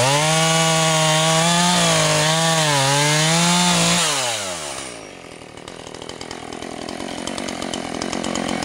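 Husqvarna 445 two-stroke chainsaw at full throttle, cutting through a birch log, its pitch dipping and wavering as the chain bites. About four seconds in the throttle is released and the engine winds down to idle.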